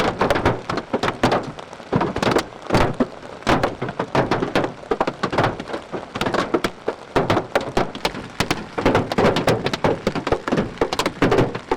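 Hailstones and rain pelting a vehicle's roof and windshield: a dense, irregular barrage of hard knocks over a steady rain hiss.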